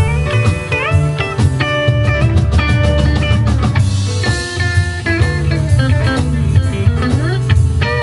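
Live band playing: upright bass and drum kit under keyboards, with a lead line whose notes bend up and down.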